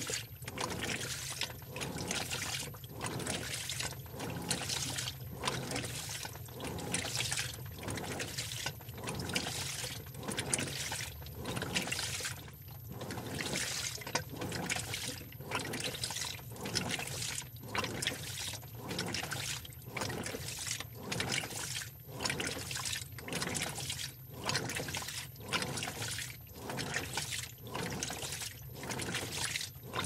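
Washing machine in its wash cycle: water and clothes sloshing in the drum in an even rhythm, about one surge a second, over a low motor hum. A thin, very high electronic tone sounds steadily underneath.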